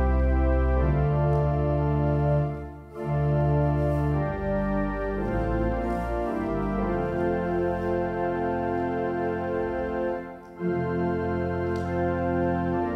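Church organ playing a hymn in sustained chords, pausing briefly between phrases about three seconds in and again about ten seconds in.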